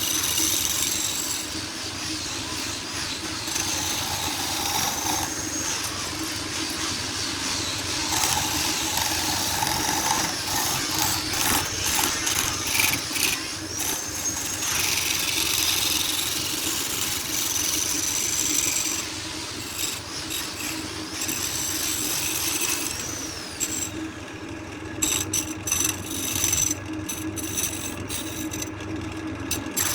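A motor running steadily, with brief rises and falls in pitch and scattered clicks.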